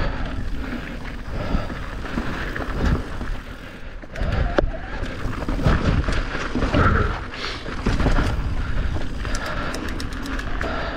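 Riding a rough enduro trail: gusty wind noise on the microphone mixed with the bike rattling and its tyres rolling over rocks and roots. A quick run of sharp clicks comes near the end.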